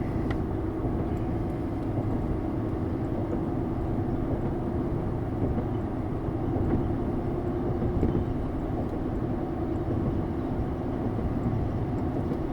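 Car driving along at a steady speed: steady road and tyre noise with a low drone, heard from inside the car.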